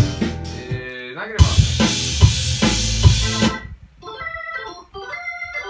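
Organ sound played on a Nord Electro 5D stage keyboard over a track with drums, with a sliding note and a cymbal wash from about a second and a half in. The music cuts off about three and a half seconds in, leaving only fainter short tones.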